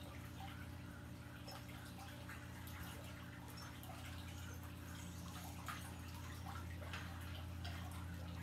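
Faint water trickling and dripping over a steady low hum, with scattered small ticks.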